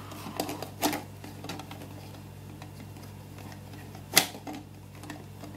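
Small plastic clicks and taps as a waving lucky cat figurine's plastic arm is worked loose and pulled off, with one loud sharp click about four seconds in.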